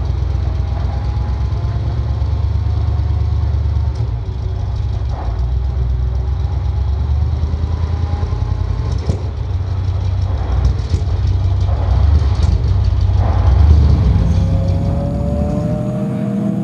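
Mercedes-AMG GT3 race car's V8 engine idling with a deep, steady rumble. Near the end a higher engine note rises slowly.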